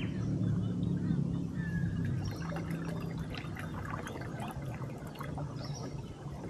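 Water trickling and lapping softly along the hull of a small boat gliding slowly on calm water, with scattered small splashes and clicks over a low steady hum.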